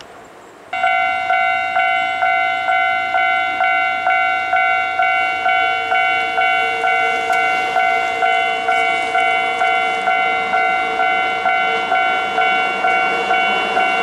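Japanese level-crossing alarm bell starts about a second in and rings steadily, a repeating electronic ding about twice a second. The approaching Hankyu 3300-series electric train runs faintly beneath it in the second half.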